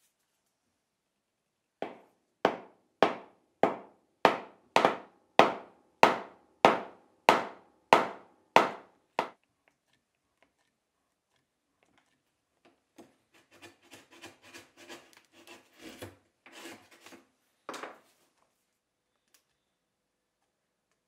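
A hand tool worked in strokes across the willow of a cricket bat: about thirteen even strokes, a little under two a second, each starting sharply and fading away. After a pause come a few seconds of quieter, irregular scraping and creaking of tools on the bat.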